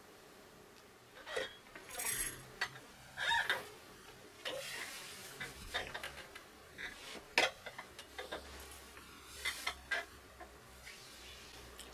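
Movement noises from a person shifting on a swivel office chair and crossing their legs: irregular rustles, light clicks and knocks, with one sharp click about seven seconds in.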